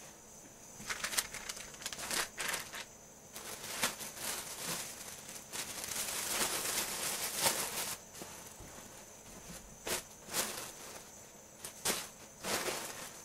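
Fruit and vegetables being packed back into a cardboard produce box: irregular rustling and crinkling of the packaging with short knocks, thickest in a longer stretch of rustling about six to eight seconds in.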